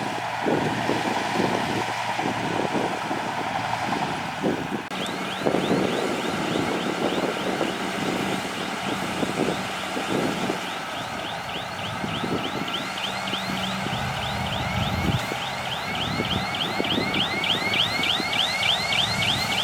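Crawler bulldozer working: the diesel engine runs under load with knocking and clatter, and from about five seconds in a rapid train of high squeaks repeats, speeding up from about three to about four a second, the squeal of the steel tracks turning.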